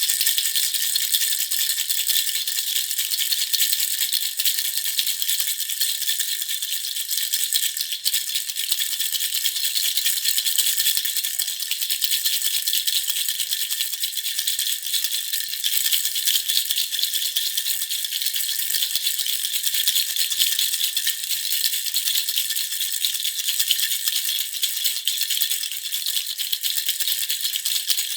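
Handheld baby rattle (jhunjhuna) shaken continuously, a dense, even jingling with no break.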